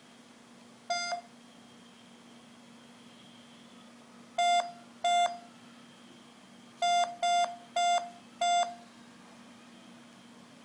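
A mobile phone gives short electronic beeps as its keys are pressed, seven in all. There is one about a second in, a pair near the middle, then four in quick succession near the end.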